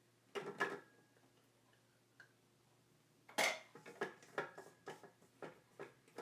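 A spatula scraping and knocking around a metal stand-mixer bowl to get out the last of the cake batter. There are two quick knocks about half a second in, then a run of clicks and scrapes, several a second, from about three seconds in.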